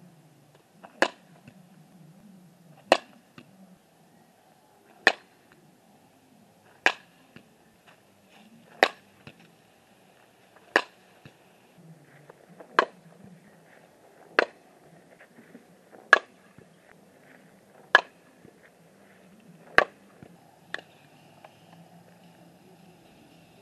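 Softball bat hitting pitched balls: a sharp crack about every two seconds, eleven hits in all, over faint steady background noise.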